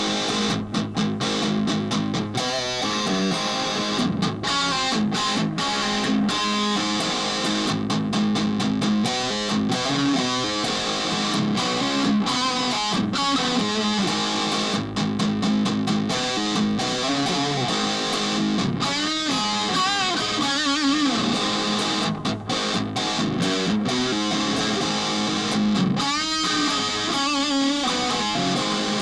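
Custom Syn G electric guitar by AD Gitar being played for a sound test: a continuous run of single notes and strummed chords, with the pitch changing all the while.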